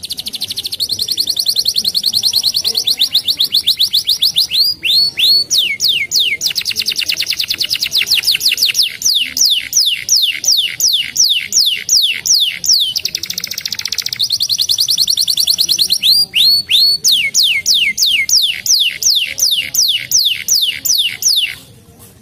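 Domestic canary singing a long song of trills: fast rolling trills alternate with runs of high down-slurred notes, several a second, and the song stops shortly before the end.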